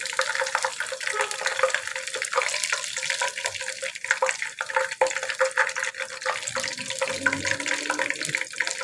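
Sliced onions sizzling in hot oil in a kadai, a dense, steady crackle of fine pops, as the golden-fried onions are scooped out with a slotted spoon. A faint steady hum sits underneath.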